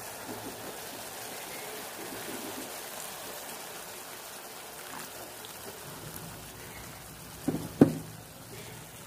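Vegetables cooking in liquid in a wok: a steady sizzling crackle, with two loud knocks close together near the end.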